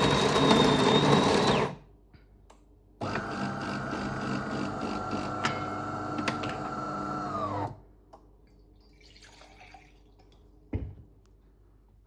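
DeLonghi Magnifica automatic coffee machine working through a brew cycle. Its built-in coffee grinder runs and stops about two seconds in. About a second later a second motor run lasts about five seconds and winds down at its end, and a single click follows near the end.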